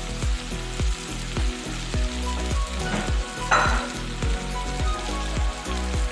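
Chicken and chopped onion sizzling in oil in a frying pan, with a short louder burst of sizzle about three and a half seconds in. Background music with a steady beat plays throughout.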